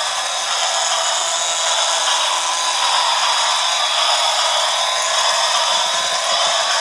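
Battery-powered toy train running on its plastic track: the steady whir of the locomotive's small electric motor.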